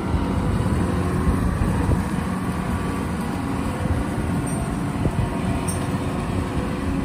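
Rice combine harvester's engine running steadily as the machine drives along a muddy field track.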